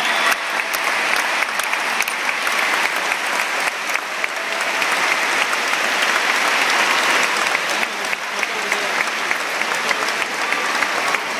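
Packed tennis stadium crowd giving a standing ovation after match point: dense, steady clapping from thousands of hands, a continuous wash of applause.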